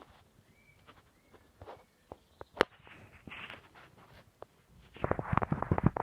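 Handling noise from cameras being held and moved by hand: scattered clicks and knocks, then a dense run of rubbing and tapping in the last second.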